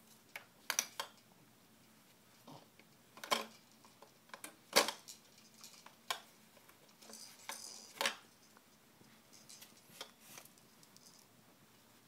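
Plastic toys on a Fisher-Price Rainforest Jumperoo clicking and clattering as a baby handles them: scattered sharp knocks, the loudest about five seconds in.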